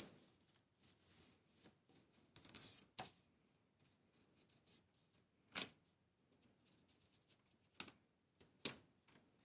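Faint handling of small diecast model kit parts: light rustling for the first few seconds, then a handful of sharp clicks, the loudest near the end.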